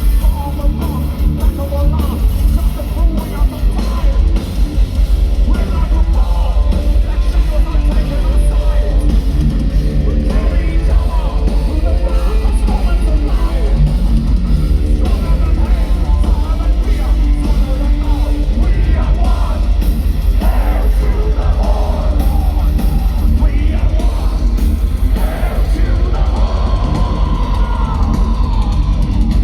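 Live thrash metal band playing loud and fast: distorted electric guitars, heavy bass and rapid drumming, with shouted vocals.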